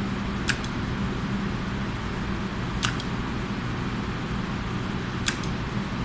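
Normally open push-button switches being pressed three times, about two and a half seconds apart, each press a pair of sharp clicks, switching a lamp through the relays of a multi-location lighting circuit. A steady low hum runs underneath.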